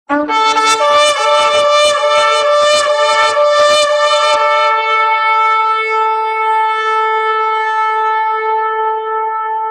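Shofar blown: it opens with a quick run of short staccato blasts, about three or four a second. About four seconds in it settles into one long, steady held note.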